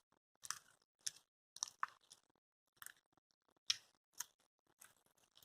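Slime being squeezed and kneaded by hand: a string of short wet squelches and clicks, roughly one every half second to second.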